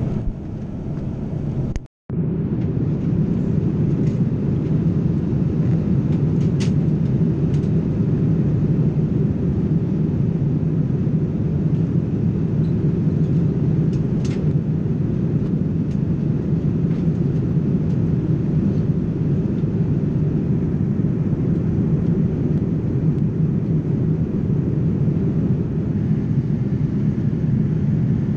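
Steady cabin noise of a Boeing 787-9 airliner in cruise flight: an even, low rush of air and engine noise. It cuts out for a moment about two seconds in, and a few faint ticks sound over it.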